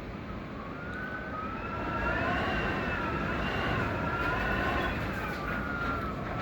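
Gale-force wind of about 100 km/h blowing hard, with a low rumble of wind on the microphone and several whistling tones that waver up and down in pitch. It grows stronger over the first two seconds.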